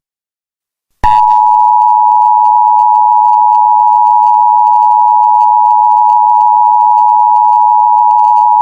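Emergency Alert System attention signal: a loud, steady two-note tone that starts about a second in and holds without change.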